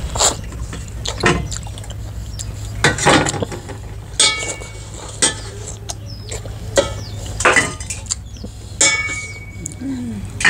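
Eating by hand at a table laid with metal plates: the plates clink and knock a dozen or so times, a few strikes ringing briefly, with mouth smacks as litchi are eaten, over a steady low rumble.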